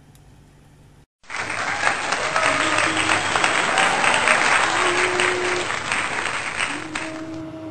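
Crowd applause, a dense clapping sound that cuts in abruptly about a second in and stops shortly before the end.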